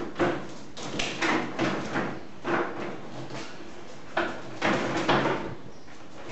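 Rigid plastic display panel being pushed and worked into the grooved plastic base of a tasting stand, giving a series of short scraping rasps and knocks, about seven in all, with a couple close together near the middle-to-late part.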